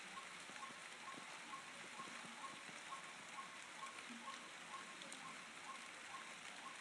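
Faint steady background hiss, with a soft short high tone repeating about twice a second.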